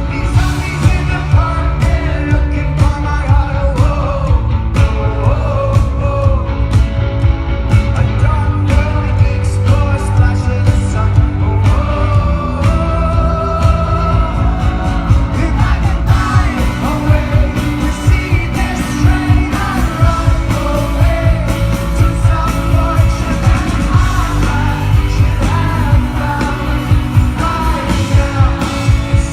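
Live rock band playing a song, with singing over drums and a heavy bass.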